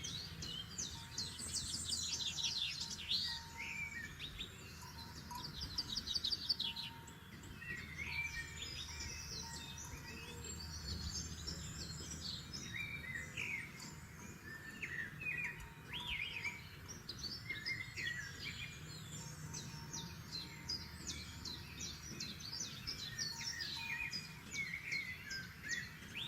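Several forest songbirds singing and calling over one another, with quick trills and short rising and falling notes, over a low steady background rumble.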